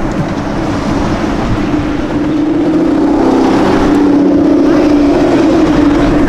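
A car engine running at steady revs, a steady drone over street noise that grows a little louder about halfway through.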